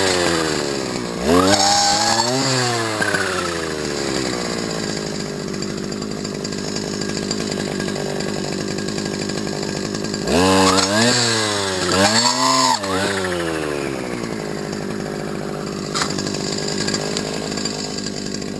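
Stihl FS250 brush cutter's two-stroke engine idling and revved up and back down in quick blips: a pair about a second in and another pair about ten seconds in.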